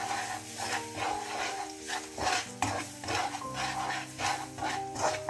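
Nylon slotted spatula stirring and scraping garlic and ground spices in oil around a non-stick wok, in repeated strokes about twice a second, as the spice paste is sautéed.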